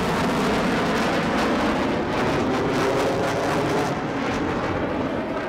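Steady engine noise of a military formation flying overhead: a KC-130J Hercules tanker's turboprops together with F/A-18C Hornet and F-35B jet fighters, easing slightly about four seconds in.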